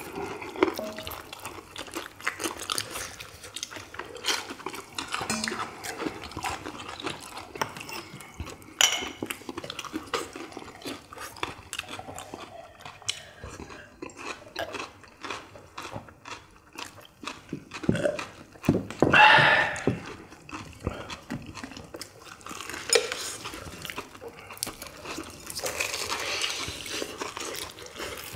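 People biting and chewing crispy fried chicken drumsticks, with many short crunches and small clicks from dishes. There is one louder burst of noise about two-thirds of the way through.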